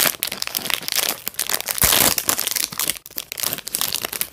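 Foil toy packet being torn open and crinkled by hand: a run of irregular crackles and rustles, loudest about two seconds in.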